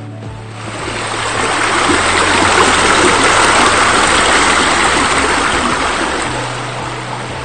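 Rushing, splashing water of pool deck jets and spillways. It swells up over the first two seconds, holds, and fades out about six seconds in, over quiet background music.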